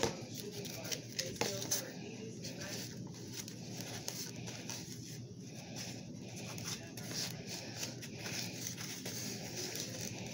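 Light rustling and scraping of food being handled: chopped onion moved about on a plate by hand and with a small utensil, with a few sharp clicks about a second in.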